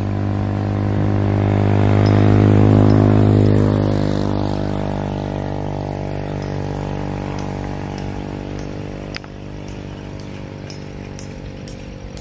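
A motor vehicle's engine running with a steady hum, growing louder over the first three seconds or so and then slowly fading, as if passing by. Faint high ticks come in over the second half.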